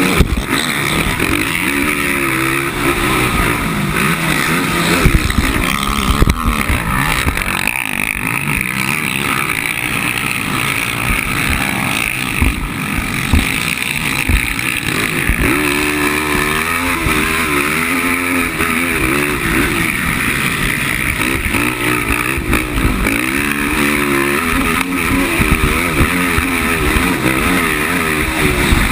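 450-class racing quad's engine revving hard, its pitch climbing and dropping again and again through the throttle and gear changes, heard up close from the rider's helmet camera over steady wind and track noise.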